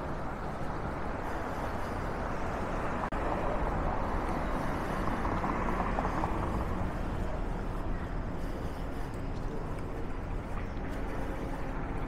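City street traffic noise, with a vehicle passing that makes it swell from about three to seven seconds in.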